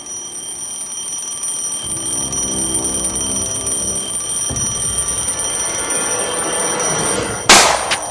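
Alarm clock ringing steadily at a high pitch, with a low swell building and rising beneath it. Near the end comes a single loud gunshot, the loudest sound, and the ringing carries on after it.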